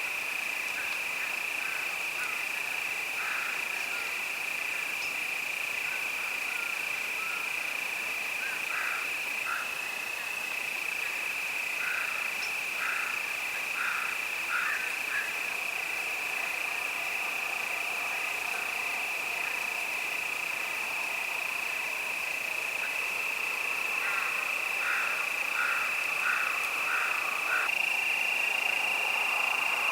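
Crickets singing in a steady, unbroken chorus. Now and then short calls come over it in runs of three to five.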